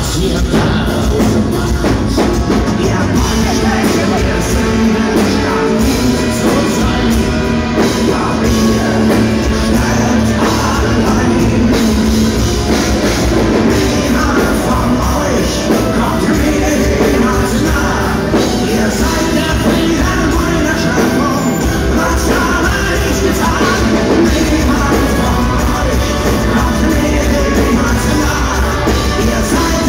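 A live rock band plays loud, with electric guitars and drums and a male singer's vocal over them, heard from the audience floor.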